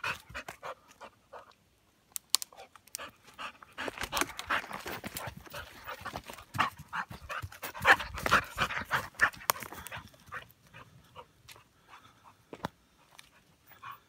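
American Pit Bull Terrier panting in quick breaths while running about on loose dirt. The panting is busiest and loudest through the middle of the clip and thins out toward the end.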